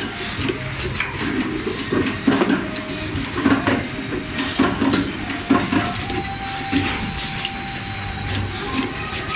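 Automatic double-head wire cutting, stripping and tinning machine running, its pneumatic heads clacking at irregular intervals, one or two a second, over a steady mechanical hum. A thin steady tone joins in about six seconds in.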